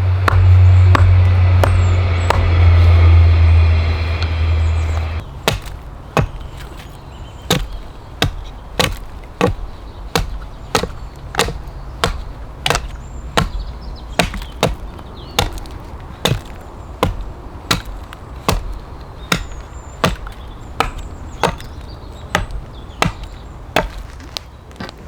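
Axe chopping wood in a steady rhythm of about one and a half sharp blows a second. A loud low rumble runs under the first five seconds and cuts off suddenly.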